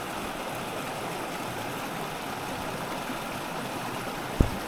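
Small stream flowing steadily, an even rush of water, with a single short low thump near the end.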